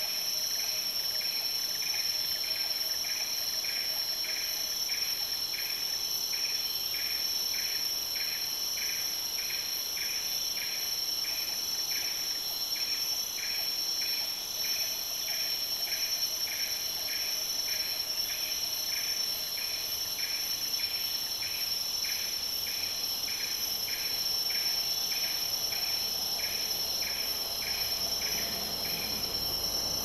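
Tropical forest insect chorus: several insects drone steadily at high pitches, joined by a repeating pulsed call about twice a second that stops near the end.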